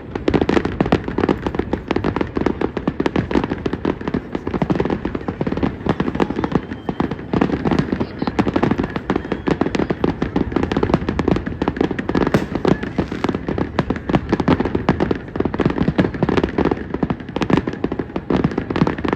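New Year's fireworks and firecrackers going off all around in a continuous dense barrage of bangs, pops and crackling, with no pause.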